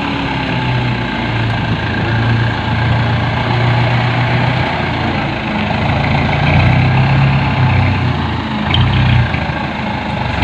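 Dump truck's diesel engine running under load, its low note rising and falling.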